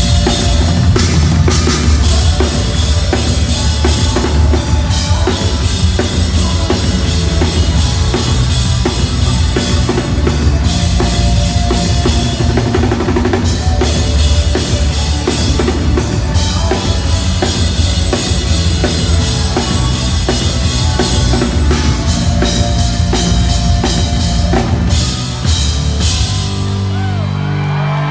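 Pop-punk band playing live at full volume, with drums loudest over electric guitar and violin. About 26 seconds in the drums stop and a held chord rings out.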